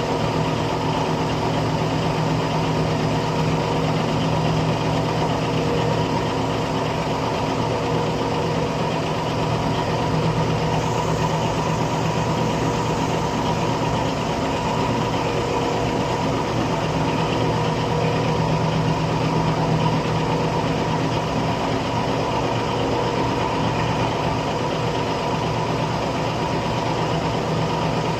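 Engine of a Putzmeister truck-mounted concrete pump running steadily at an even pitch.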